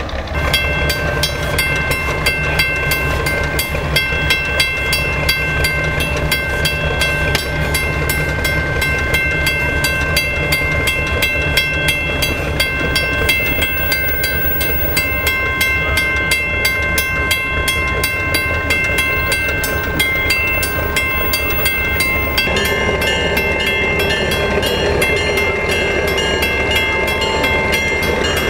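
Railroad crossing signal bell ringing in a steady, even run of strikes several times a second, over the low hum of a locomotive engine.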